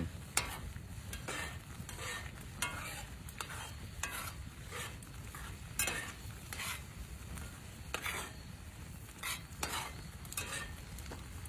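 Pre-cooked chicken sizzling in a cast-iron skillet over a campfire as its water cooks off, stirred with irregular scraping strokes about once a second.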